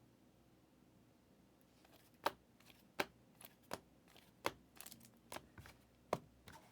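Trading cards being handled: a string of sharp taps and clicks, five of them louder than the rest, starting about two seconds in.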